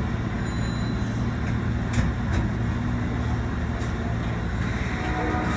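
Inside an Osaka Municipal Subway 22 series subway car: a steady low hum and rumble, with a few short clicks about two seconds in and again near four seconds.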